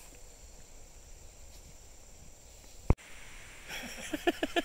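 Insects droning steadily in the surrounding grass and trees, a thin high-pitched background hum. About three seconds in comes a single sharp click, followed near the end by a quick run of short, pitched sounds, several a second.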